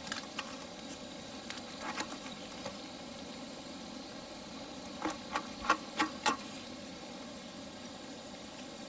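Knife slicing a fresh jalapeño pepper on a paper plate: a few light, crisp cuts, then a quick run of five louder chops about five seconds in. A steady low hiss runs underneath.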